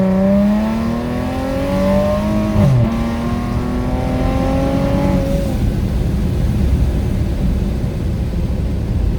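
Supercharged car engine under hard acceleration, rising in pitch through one gear. There is a quick drop in pitch at an upshift about three seconds in, then a second rising pull. The driver lifts off about five and a half seconds in, leaving steady road noise heard from inside the cabin.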